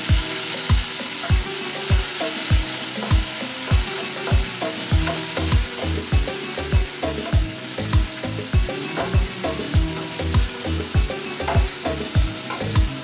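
Dried red chillies sizzling as they fry in hot oil in a pan, stirred with a wooden spatula. A steady deep beat, a little under two thumps a second, runs under the sizzle and is the loudest thing.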